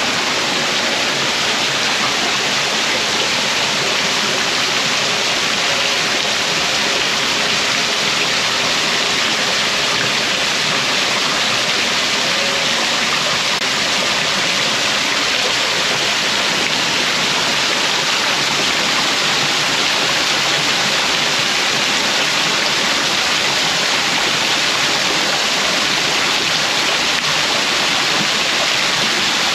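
Steady, loud rush of falling water, unchanging throughout.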